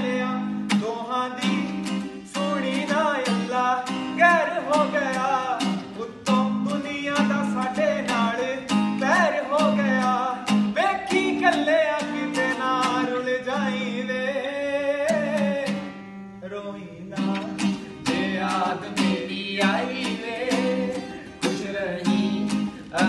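Acoustic guitar strummed in a steady rhythm, accompanying a man singing a Punjabi song live. The music briefly thins out about sixteen seconds in, then carries on.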